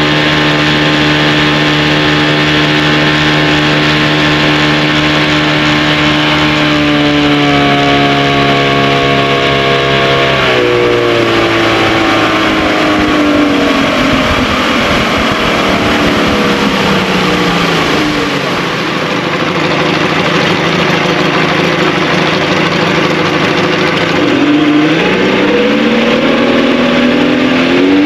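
A 1957 Kiekhaefer Mercury Mark 75 straight-six two-stroke outboard running at speed. It is throttled back so its pitch falls steadily for about ten seconds, holds low for a few seconds, then is opened up again near the end with the pitch climbing.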